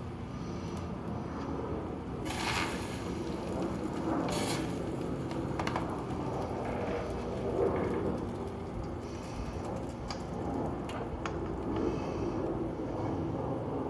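A metal cooking utensil scraping and knocking against a pot on the stove, with a handful of sharp clatters, the loudest about two and a half and four and a half seconds in, over a steady background noise.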